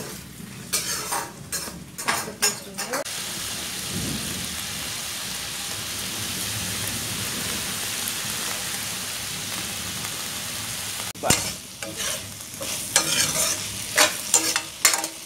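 Chopped vegetables frying in a wok: a steady sizzle of hot oil, with a metal spoon knocking and scraping against the pan for the first few seconds and again from about eleven seconds in as they are stirred.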